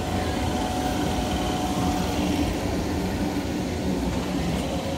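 Passenger train coaches rolling past close by: a steady rumble of wheels on rail, with a faint steady whine over it.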